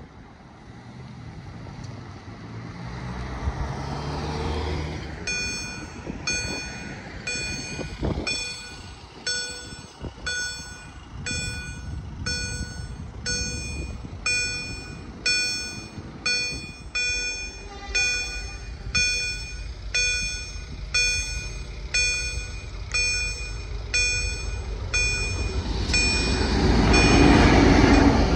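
Railway level-crossing warning bell ringing in a steady run of evenly spaced strikes, a little under two a second, signalling an approaching train. Near the end a loud rushing rumble builds as the train reaches the crossing.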